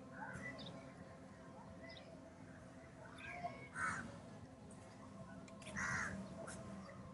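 Birds calling repeatedly, with two louder calls about four and six seconds in.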